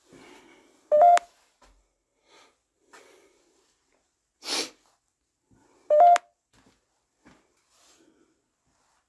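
Short electronic two-tone beeps from a phone running a ghost-hunting app, repeating about every five seconds, twice here: about a second in and about six seconds in. Between them, a loud sniff through a stuffy nose.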